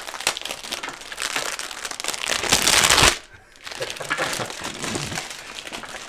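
Clear plastic packaging bag crinkling and crackling as a new keyboard is pulled out of it, like a bag of chips, loudest about two to three seconds in.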